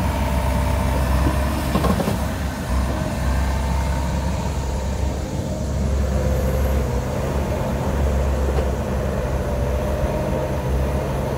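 Bobcat E42 mini excavator's diesel engine running steadily under load, with a whine that wavers up and down as the boom swings and the bucket digs. A single knock sounds about two seconds in.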